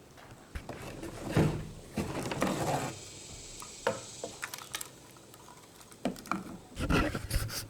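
Hard plastic fuel pump module parts being handled and fitted together: irregular clicks, knocks and rattles, with a cluster of louder knocks near the end.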